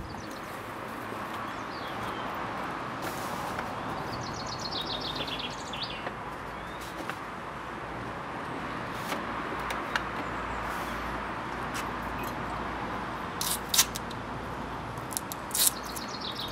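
Outdoor ambience: a steady background hiss with a small bird singing rapid high trills about four seconds in. Two short clusters of sharp clicks come near the end.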